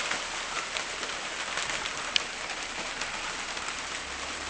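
Steady rain pattering and dripping through a hail-smashed lean-to roof, as a fine patter of small ticks, with one sharper tick about two seconds in.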